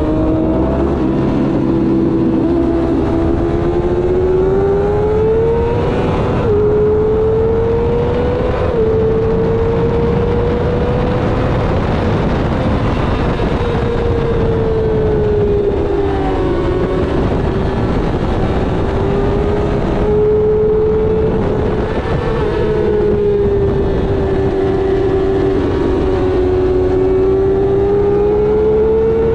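Sport motorcycle engine running hard at high revs. Its pitch climbs steadily and then drops suddenly at each upshift, and it falls off about halfway through before building again.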